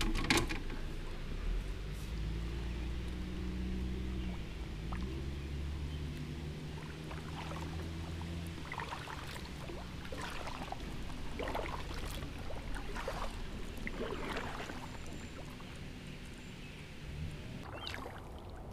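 Kayak paddle strokes: the blades dip and splash in the water about once a second, over a low steady hum.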